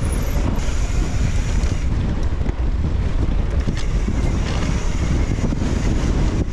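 Heavy wind buffeting the microphone: a loud, steady rumble with no break.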